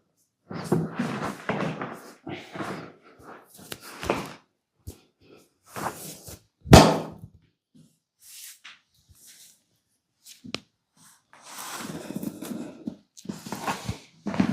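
Hand massage on bare skin: irregular stretches of rubbing and brushing with scattered light knocks, and one sharp, loud slap-like impact about seven seconds in.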